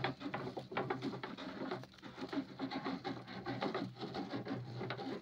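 Gillnet being hauled aboard by hand and shaken: a rapid, irregular clatter of taps, knocks and rustles as the wet mesh, its floats and float line come over the boat and fish are shaken out of the net, over a steady low hum.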